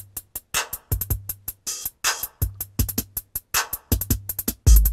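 A Korg Electribe rhythm synthesizer plays a fast electronic drum pattern through a KRK Rokit 7 studio monitor: quick clicky hits and hi-hats over repeated deep bass notes, with a heavier, deeper kick near the end. The monitor is playing again after its failed electrolytic capacitor was replaced, which shows the repair worked.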